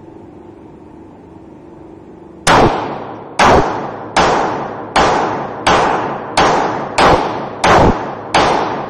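Semi-automatic pistol firing a steady string of shots, about one every 0.7 seconds, nine in all, each shot ringing out and decaying before the next. The shots begin about two and a half seconds in and continue without a break.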